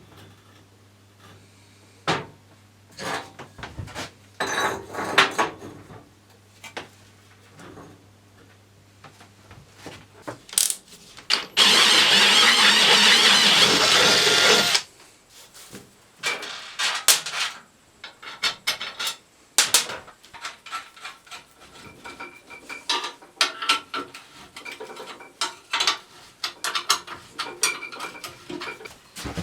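Clicks, knocks and rubbing of hand tools and metal parts being worked on at a workbench. About eleven seconds in, a loud steady rushing noise from a tool lasts about three seconds.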